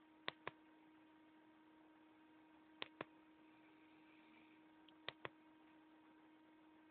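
Near silence with a steady electrical hum, broken by three pairs of sharp clicks, the pairs about two and a half seconds apart.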